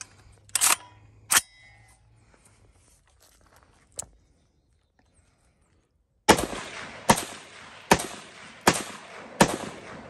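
Two sharp metallic clacks as the Aero Precision AR-10's action is worked. Then the .308 semi-automatic rifle fires five shots about 0.8 s apart, each report echoing across the range.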